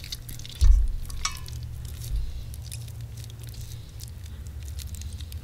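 Wet squishing and light scraping as a paring knife and fingers loosen raw chicken wing meat and fat from the bone, with a few short knocks, the loudest just under a second in, over a steady low hum.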